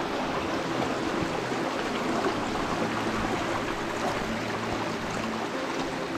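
Water of a mountain torrent rushing steadily.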